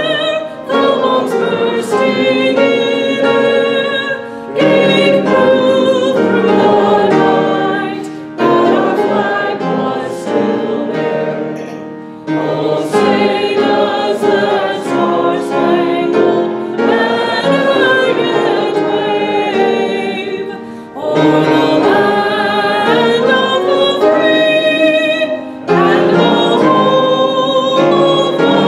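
The national anthem sung into a microphone by a woman, in phrases a few seconds long with brief breaths between them.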